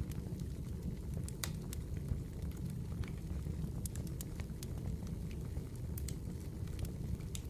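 Wood fire burning with a steady low rumble, crackling and popping in irregular sharp snaps.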